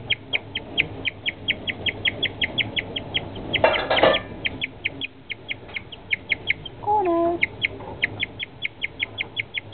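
Guinea pig chirping: a rapid string of short, high, bird-like chirps, about four to five a second, with a brief louder noise in the middle.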